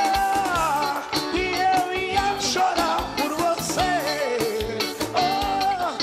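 Brega song performed live: a male singer sings into a microphone over amplified backing music with a steady beat.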